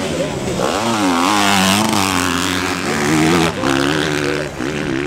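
Motocross bike engines revving hard, the pitch rising and falling as the throttle is worked. The engine note drops off sharply about three and a half seconds in, then picks up again.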